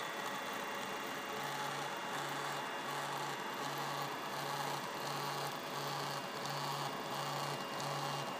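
3D printer running mid-print: a steady whir and hiss with faint high whines. From about a second and a half in, a low motor hum switches on and off in an even rhythm, nearly twice a second, as the machine repeats the same short moves.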